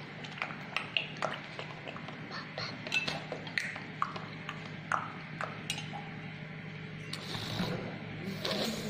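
Irregular light clicks and clinks, some with a short metallic ring: a plastic dropper tapping against a stainless steel tumbler and a plastic palette as water is dropped into food-colour wells.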